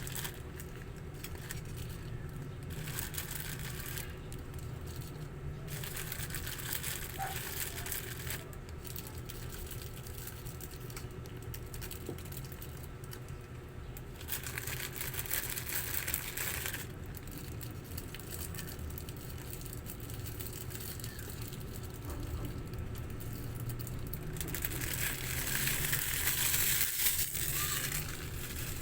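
Several bouts of crinkling and rustling, each a few seconds long, from plastic packaging being handled, over a steady low hum; the last bout is the loudest.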